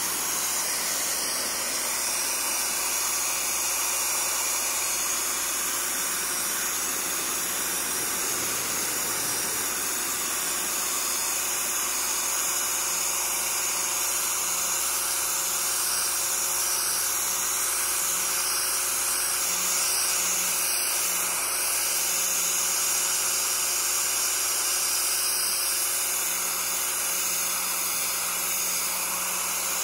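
Pressure washer blasting a steady high-pressure jet of water onto a plastic canoe hull: a constant hiss of spray with the washer's motor and pump humming underneath.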